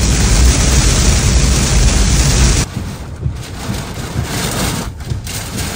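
Heavy rain and wind gusts beating on a car, heard from inside the cabin, with a deep rumble underneath. About two and a half seconds in it drops off suddenly to a quieter, steady rain hiss.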